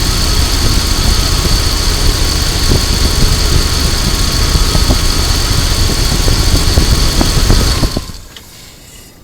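2000 Dodge Durango's 5.9-litre V8 idling steadily, running again after a no-start. It stops about eight seconds in.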